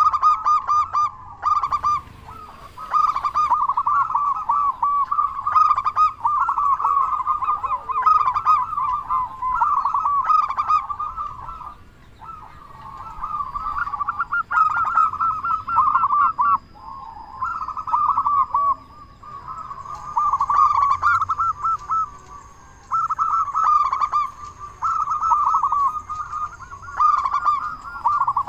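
Zebra dove (perkutut) cooing, phrase after phrase of fast, rolling notes with short pauses between the phrases.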